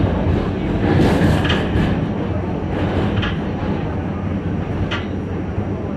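R68 subway train running along the track, heard from inside the front car: a steady low rumble with a few sharp clicks about one, three and five seconds in.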